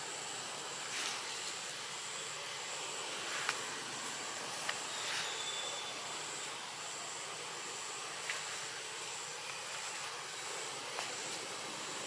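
Steady high-pitched insect drone over a background hiss, with a few faint clicks scattered through.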